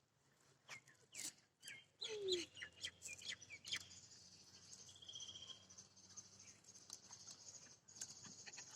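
Small birds chirping, with scattered sharp clicks in the first few seconds and then a steady high-pitched chorus from about four seconds in.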